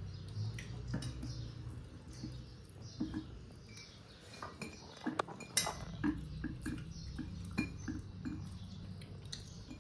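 A person eating rice by hand from a ceramic plate: close chewing and mouth sounds, with scattered light clicks and clinks of fingers against the plate, over a low steady hum.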